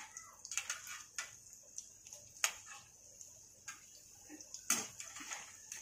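Batter-coated potato vadas deep-frying in hot oil in a kadhai: a steady high sizzle with irregular crackles and pops, and a few sharper clicks, the loudest about two and a half and nearly five seconds in, as the vadas are turned over.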